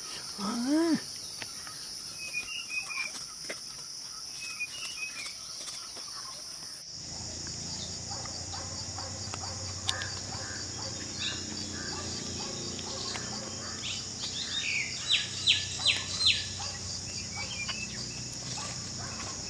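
Forest ambience: a steady high-pitched insect drone with scattered bird chirps, including a quick run of four chirps near the end. About a third of the way in the background changes abruptly and a low rumble joins the drone.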